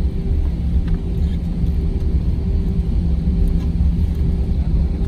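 Cabin noise inside an Airbus A320 by a window seat: a steady low rumble of the running jet engines and the airframe, with a faint steady hum over it.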